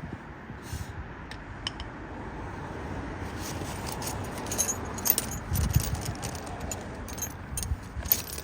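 Light metallic clinking and jingling of small metal parts and tools being handled during brake work on a car, as irregular sharp clicks that come thicker from about three seconds in.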